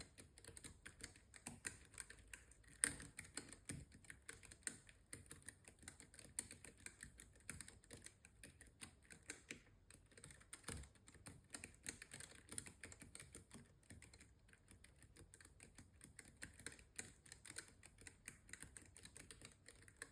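Typing on a Keychron K3 V2 low-profile mechanical keyboard with Keychron low-profile optical White switches: a quick, uneven run of key clicks, with a few louder strokes, the loudest about three seconds in.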